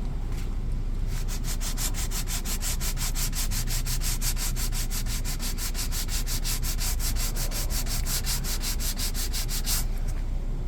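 Sanding the split, raised edges of a center console cover flush: rapid, even back-and-forth scraping strokes, about seven a second, starting about a second in and stopping shortly before the end.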